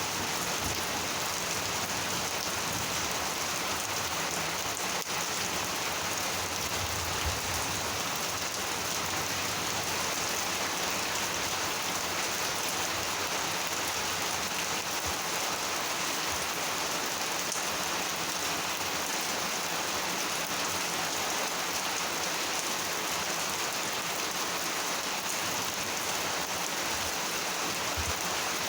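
Monsoon rain falling steadily on surfaces.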